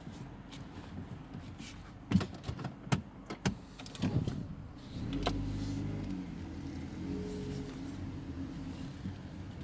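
Peugeot 308 front end knocking: several sharp knocks two to four seconds in. This is the unexplained knock over small bumps and when the steering wheel is turned. From about five seconds on a steady pitched hum takes over.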